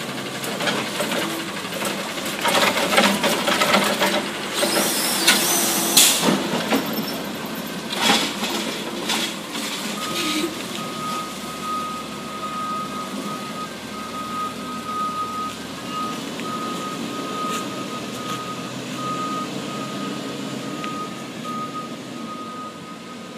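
Automated side-loader garbage truck working at the curb: engine and hydraulics running with loud clattering and bangs from the lift-arm cycle in the first several seconds. About ten seconds in, the truck's backup alarm starts beeping repeatedly as it reverses.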